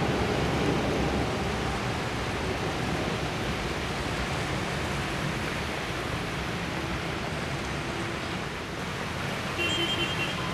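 Heavy rain and the wash of cars wading through deep floodwater in an underpass, the water sloshing around them as a steady noise that is a little louder at first. A brief beep sounds near the end.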